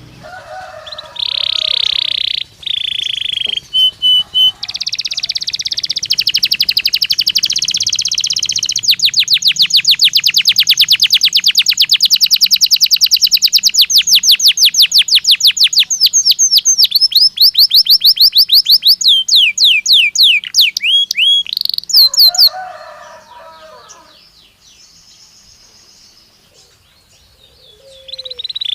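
Domestic canary singing one long song phrase: a buzzy roll, then a long rapid trill of repeated sweeping notes that slows into a few separate notes near the end.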